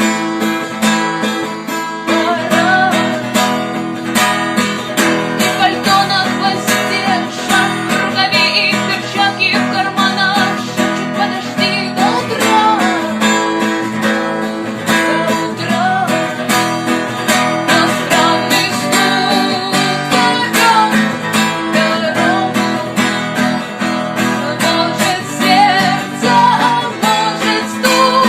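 Music led by a guitar strummed in a steady rhythm.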